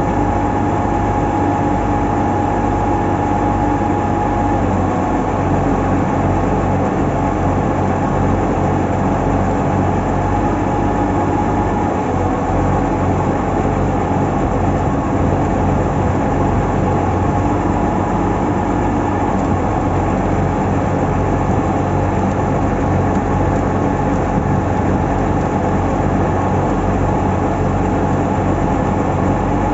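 Heavy engine of a truck-mounted borewell drilling rig running steadily at constant speed, with a deep hum and a steady whine that dips slightly in pitch about five seconds in.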